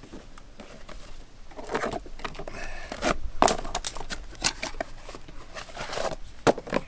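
Hands handling plastic battery packs, a charger and their packaging: irregular scraping and rustling with several sharp plastic clicks, the loudest about three and a half seconds in and near the end.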